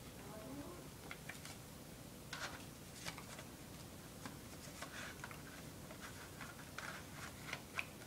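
Faint handling sounds of a CD album: soft rustles of the paper booklet and light clicks and taps of the plastic jewel case, with a sharper click near the end.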